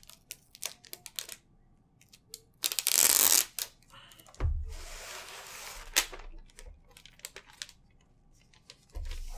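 Protective plastic film on a new laptop being handled and torn, crinkling with small clicks. A loud rip comes about three seconds in and a softer, longer rustle follows.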